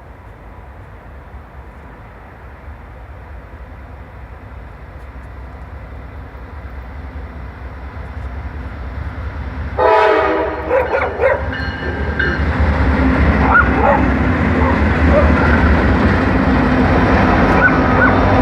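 Norfolk Southern diesel freight train approaching, its rumble growing steadily louder. About ten seconds in the locomotive horn sounds with a loud blast that breaks into shorter notes, and then the locomotives and freight cars pass close by, running loudly.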